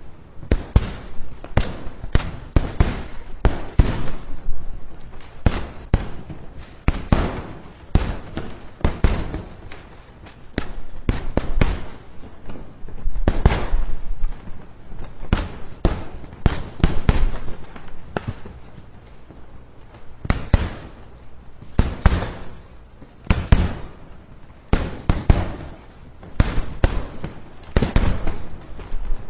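A rapid, irregular run of body-hit sound effects: punches and thuds landing several times a second, with some harder hits standing out.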